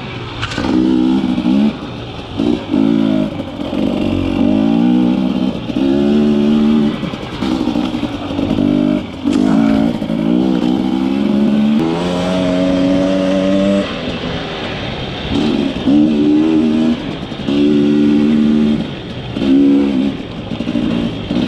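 Quad bike engine under way, the throttle opened and closed in short bursts every second or two, so the engine note rises and falls again and again.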